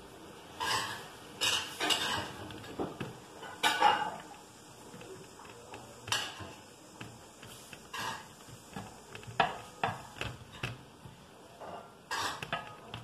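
Irregular clinks and knocks of a cup against a pan and dishes as pizza dough is pressed out in the pan with the cup.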